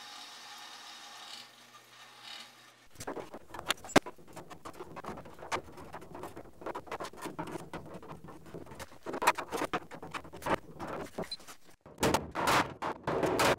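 A bandsaw runs briefly at the start. Then, from about three seconds in, a hand-held slotted steel bending tool works the lip of the Jeep CJ5 tub's sheet-metal panel: irregular clicks, scrapes and knocks of steel on steel, denser and louder near the end.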